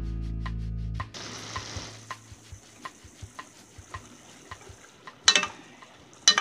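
A metal spatula stirs chicken and vegetables in a metal wok over a light sizzle, tapping and scraping against the pan about two or three times a second, with two loud scrapes near the end. Background music plays for the first second, then stops.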